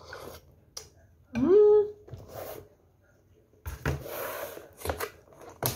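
A woman's short closed-mouth 'mmm' while eating soup, rising in pitch and then held for about half a second, followed by breathy sounds and a sharp click near the end.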